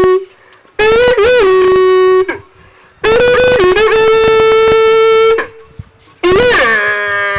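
A horn-like wind instrument plays three long, loud held notes, each opening with a quick rise and fall in pitch before settling on a steady tone. The tail of an earlier note ends right at the start.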